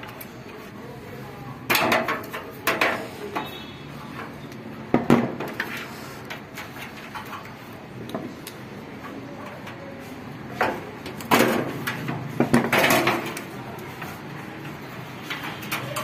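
Scattered metallic clicks and knocks as hands and pliers work on the wiring and gas valve inside an opened instant gas water heater, a handful of sharp taps at irregular moments over a faint steady background.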